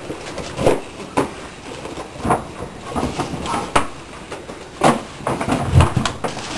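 Tissue paper and a gift bag rustling and crinkling as a present is unwrapped, with scattered sharp clicks and knocks from a box being handled.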